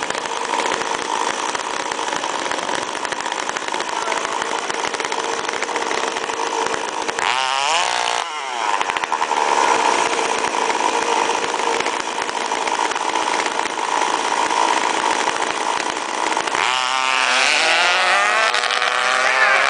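Small engines of radio-controlled drag cars running steadily at a high pitch. About seven seconds in, one revs up and back down, and near the end several rev up together.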